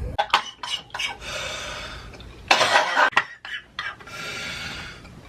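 A man wheezing: two long, strained, whistling breaths with one loud harsh gasp or cough between them. A few sharp clicks come at the start.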